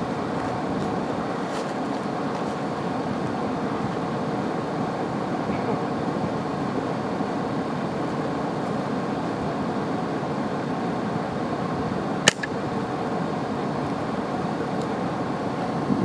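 Vehicle engine idling steadily, with a single sharp .22 rifle shot about twelve seconds in.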